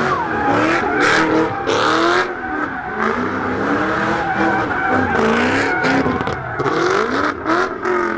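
A car engine revving up and down over and over, its pitch rising and falling every second or so, with bursts of tyre squeal: a car doing donuts or burnouts.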